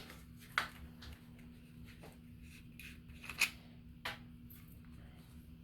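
A few light clicks and taps of small parts being handled, the sharpest about halfway through, over a faint steady hum.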